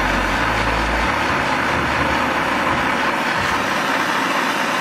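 Handheld gas torch burning with a steady hiss, its flame shrinking the heat-shrink sleeve onto a power cable's ring terminal.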